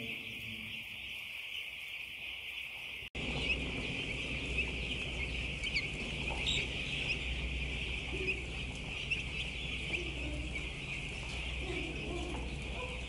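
Continuous, dense peeping of a large flock of broiler chicks. About three seconds in it cuts to a closer recording of the same peeping with a low steady hum underneath.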